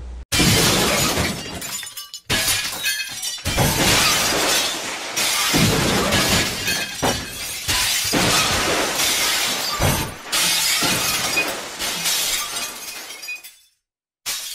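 A loud shattering, crashing noise like glass breaking over and over, broken by a few short gaps. It fades away near the end, then gives one last brief burst.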